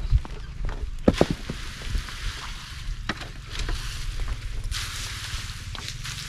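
Dry harvested chickpea plants rustling and crackling as they are forked off an ox cart onto the threshing ground. A cluster of sharp crackles about a second in, a longer hissing rustle near the end, and a steady low rumble underneath.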